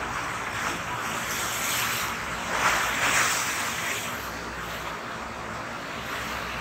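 Ocean surf rushing steadily as waves break offshore, swelling a little louder about halfway through.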